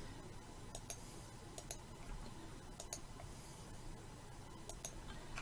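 A handful of faint, sharp, scattered clicks from a computer mouse and keyboard.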